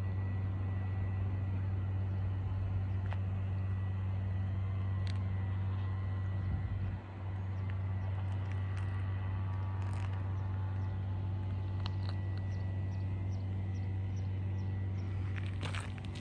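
A steady low mechanical hum, dipping briefly about halfway through, with faint high chirps repeating about twice a second in the second half.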